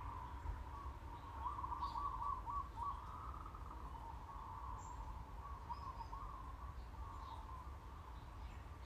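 Birds chirping in the background: a continuous warbling run of notes with a few brief higher chirps over it.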